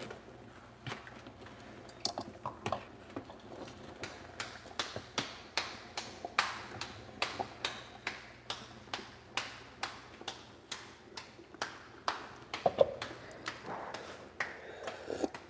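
Tortilla dough being patted flat between the palms: a steady run of light slaps, about three a second.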